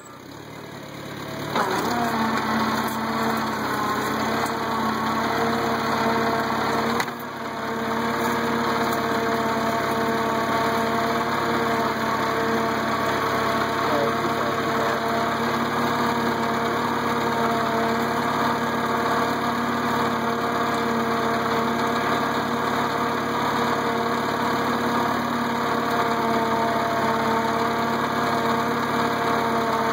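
International Cub tractor's four-cylinder engine running steadily at a constant pace while pulling cultivators through the soil. The sound is quieter for the first second or so, then holds an even engine note, with a brief drop about seven seconds in.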